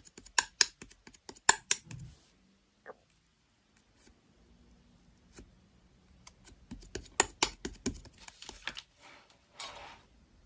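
Slime being played with by hand: bursts of sharp, crisp clicks and pops, a cluster in the first two seconds and another from about six seconds in.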